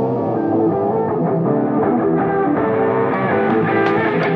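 Background instrumental music led by guitar, with held notes over a steady level.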